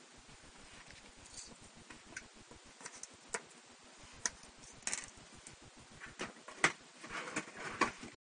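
Kitchen knife slicing a peeled carrot into rounds on a plastic cutting board: irregular sharp clicks as the blade cuts through and taps the board, coming closer together near the end.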